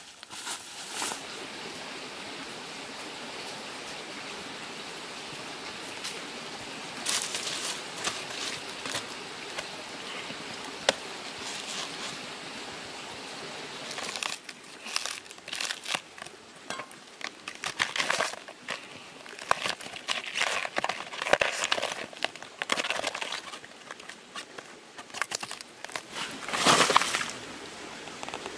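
A steady hiss, then from about halfway through, repeated crinkling, tearing and snapping as the fibrous layers of a banana plant stem are peeled apart by hand.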